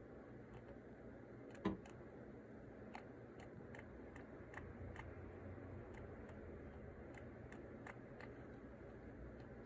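Djungarian hamster making faint, short ticking squeaks at irregular intervals, typical of it while grooming. A louder single knock comes about a second and a half in.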